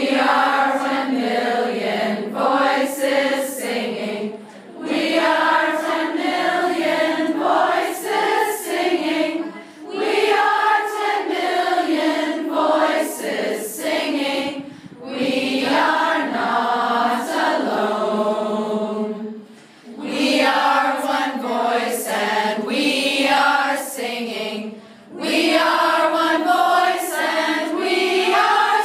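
A group of voices singing together as a choir, with no instruments heard, in phrases of about five seconds each, separated by brief pauses.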